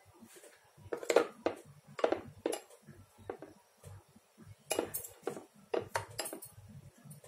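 Kitchenware clinking: a utensil knocking and tapping against bowls and dishes in a string of separate clinks, the loudest about a second in and again around five seconds in.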